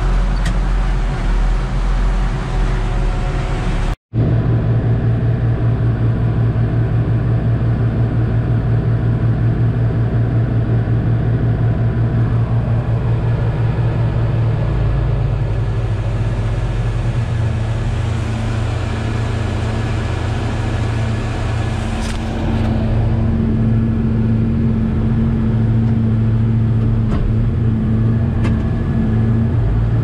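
Diesel engine of heavy farm machinery running steadily under load during silage chopping, heard from inside a cab as a loud, even hum. A higher steady whine joins from about halfway.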